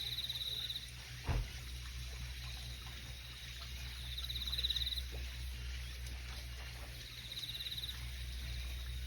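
Faint, high, rapidly pulsed chirping trills of an insect, repeating in short bursts every few seconds over a steady low hum, with one brief thump about a second and a half in.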